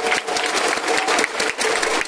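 Crowd of baseball fans clapping, with a few voices calling out over the clapping.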